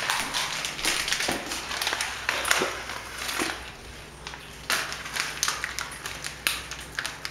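Irregular light clicks and taps, many short ones scattered throughout, over a faint low steady hum.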